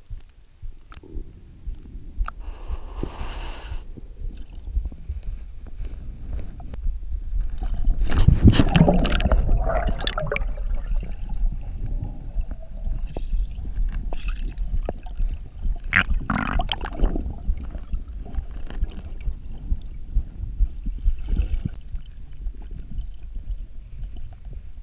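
Water around a freediver's chest-mounted camera, heard muffled underwater: a constant low rumble with splashing and gurgling. The loudest stretch is a burst of splashing and gurgling about eight to ten seconds in, as the diver goes under the surface, with another burst around sixteen seconds.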